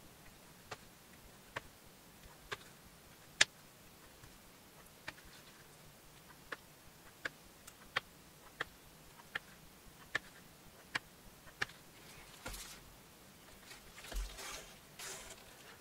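Sharp single clicks, about one every 0.8 seconds and a dozen in all, as a small steel hand tool is worked along the edge of a leather wallet. Near the end the clicks stop and soft rustling follows.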